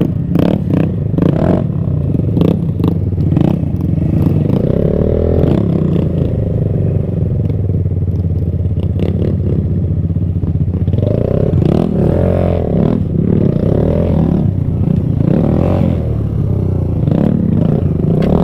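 Kawasaki Z125's small single-cylinder four-stroke engine running along a rough dirt trail, its pitch rising and falling as the throttle is worked. Clatter and knocks from the bike bouncing over bumps come mostly in the first few seconds.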